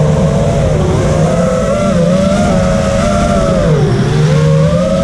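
Mini FPV quadcopter's brushless motors and propellers whining in flight on a 4S battery, the pitch wavering with the throttle and dipping sharply about four seconds in before climbing back.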